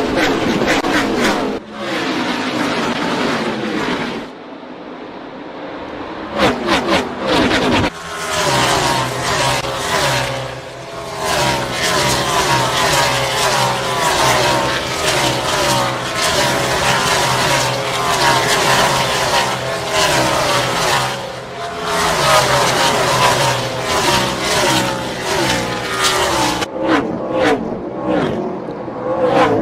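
NASCAR Gen 6 stock cars' V8 engines running at racing speed, the pitch rising and falling as cars rev and pass. The sound changes abruptly several times, with a quieter stretch about five seconds in.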